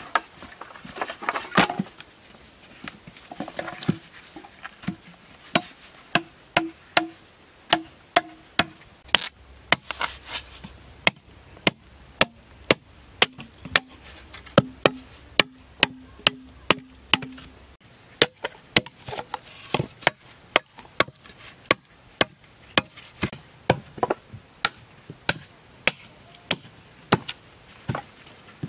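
Machete chopping green bamboo stems on a wooden block: a long run of sharp chops at about two strokes a second, some giving a short hollow ring from the bamboo tube.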